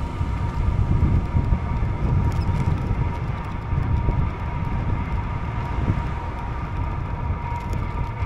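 Wind buffeting the camera's microphone, with tyre noise from a bicycle rolling along tarmac: a steady low rumble.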